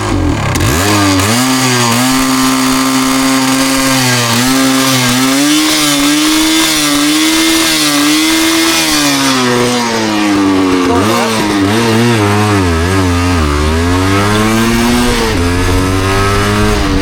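Yamaha DT250MX's single-cylinder two-stroke engine under way, its pitch rising and falling with the throttle and dropping twice in the second half. It is running with a misfire that the rider puts down to water in the engine.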